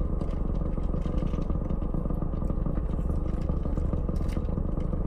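Steady low rumble of an idling car heard from inside the cabin, with faint scattered clicks from eating and sipping.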